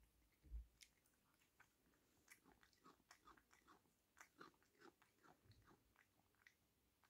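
A cat crunching and chewing a small dry treat: a run of faint, quick crunches lasting about six seconds, with a soft low thump about half a second in.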